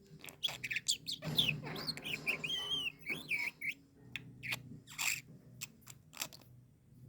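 Pet lovebird chirping: a string of short, sharp chirps and clicks, with a few whistled calls that bend in pitch around the middle.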